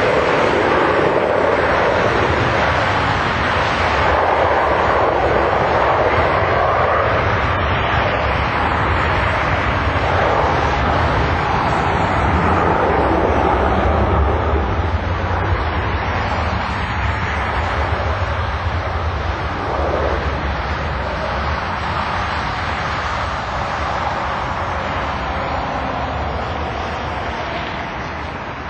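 Jetliner with twin tail-mounted engines on its takeoff roll at takeoff power: loud, steady jet engine noise with a deep rumble, fading slightly near the end as the aircraft lifts off.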